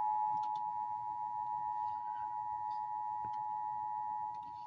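Emergency Alert System attention signal: two close pitches sounded together as one steady alert tone, announcing a Flood Warning.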